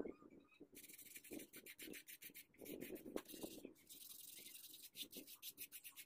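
Hand-sanding of cured epoxy resin with sandpaper: quick, repeated rasping strokes, broken by a few dull bumps of the resin piece being moved on the board.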